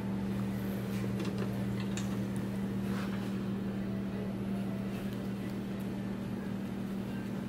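Steady low mechanical hum, even throughout, with a few faint clicks in the first few seconds.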